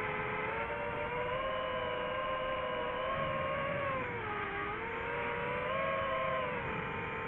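FPV drone's electric motors and propellers whining steadily, the pitch dropping about four seconds in and climbing again a second later.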